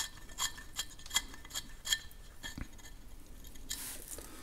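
Light metallic clicks, about two to three a second with a slight ring, as the brass metering nozzle is turned by hand out of a Farmall M carburetor body. A short rustle of handling comes near the end.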